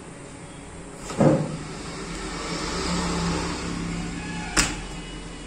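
Hands pressing a new DIP IC chip into its holes on a CRT TV circuit board: a dull thump about a second in, rustling handling noise, then a sharp click near the end.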